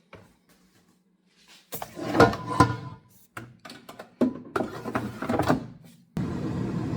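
Knocks and rattles of cookware being handled in a kitchen, in two spells, the loudest about two seconds in. A steady rushing noise starts suddenly near the end.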